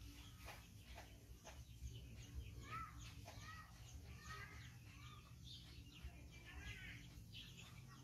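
Faint high chirping calls: quick short chirps with several arching call notes, thickest through the middle seconds, over a low steady rumble.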